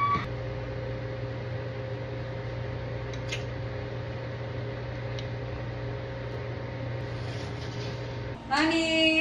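Steady hum of a kitchen appliance's fan motor, with a couple of faint clicks. Near the end the hum cuts off and a woman's voice comes in.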